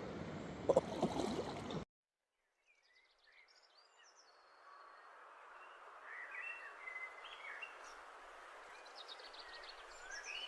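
Rushing creek water with a couple of short knocks about a second in, cutting off suddenly; after a brief silence, songbirds chirp repeatedly over a soft, steady stream hiss that fades in.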